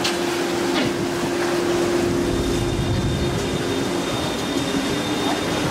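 Vaporetto water bus under way: its engine runs with a steady low drone over a constant rushing noise.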